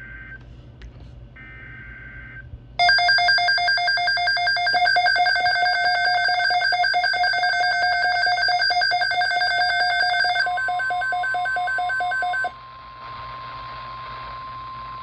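Emergency alert tones on NOAA Weather Radio, marking the start of a tornado watch message: two short bursts of screechy data tones, then a loud, rapidly pulsing alarm of several tones for about eight seconds. Near the end a steady single-pitch weather radio alarm tone takes over, with static hiss under it.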